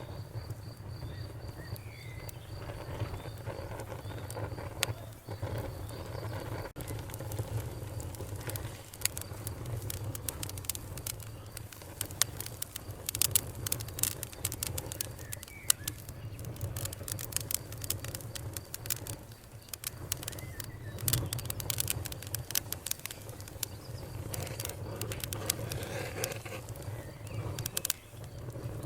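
Wood fire crackling, with scattered sharp pops over a steady low rumble; the pops come thicker from about nine seconds in.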